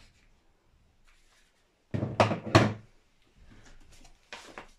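Objects being handled and set down on a wooden workbench: a sharp click at the start, a loud pair of knocks about two seconds in, then a soft rustle and a couple of lighter clicks near the end.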